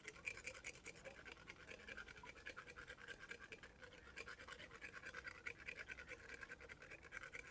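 Faint, rapid scraping strokes of an equine dental float (tooth rasp) filing a donkey's teeth, several strokes a second. The rasping files down sharp tooth edges that were making it hard for the donkey to eat.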